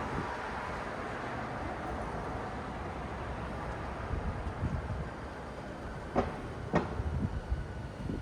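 City road traffic: a steady hiss of passing vehicles that thins out, then a low rumble with two sharp knocks about half a second apart, some six seconds in.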